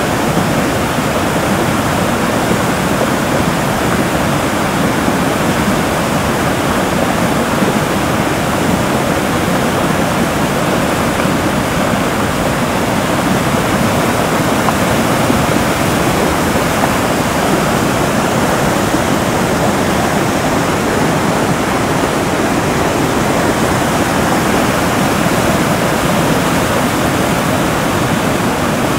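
River water pouring over a weir and churning in the white water below: a loud, steady rushing.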